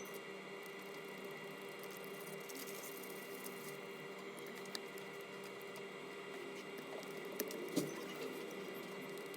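A steady machine hum with several faint high tones, and a few light clicks or taps in the second half.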